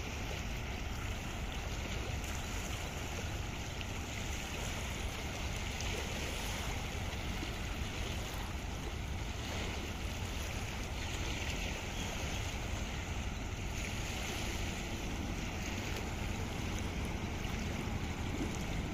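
Steady low rumble of boat engines under way, mixed with rushing water and wind on the microphone. The sound is even throughout, with no distinct engine tone or horn.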